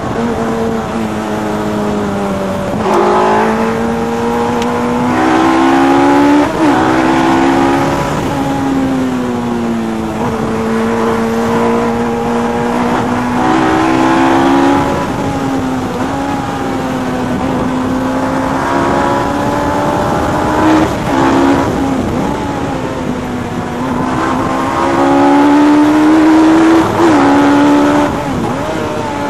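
Westfield Megabusa's Suzuki Hayabusa inline-four motorcycle engine, heard from the open cockpit, pulling hard and easing off. Its pitch climbs and falls through long stretches, with brief sharp breaks several times at gear changes.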